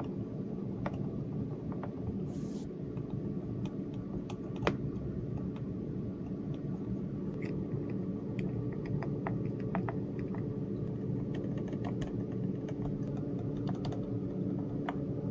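Keys of an Attack Shark X98 mechanical keyboard being pressed, giving short clicks at irregular intervals. The clicks are sparse at first and come more often after about seven seconds.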